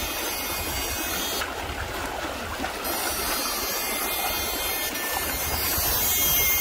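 Shallow river water flowing and rushing over a stony bed, a steady noise, with a low rumble underneath.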